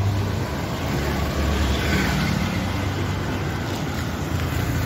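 Street traffic noise with a steady low engine hum underneath.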